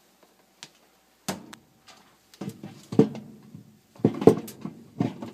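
Hollow plastic knocks and clunks as a Kenmore 70 series washer's agitator is set back down onto its drive shaft and a metal socket extension is fitted into it. After about a second of near quiet come a few separate knocks, the sharpest near the end.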